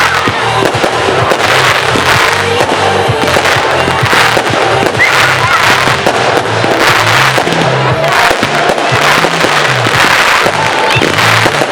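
Display fireworks going off in quick succession: a dense run of bangs and crackles with a few short whistles. Music with a steady rhythmic bass plays underneath.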